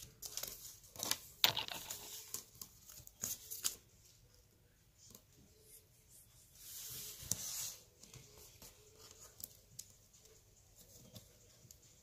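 Faint clicks and taps of hands handling a paper ruler and small objects on a tabletop, several in the first few seconds, with a short paper rustle about seven seconds in and scattered light clicks after.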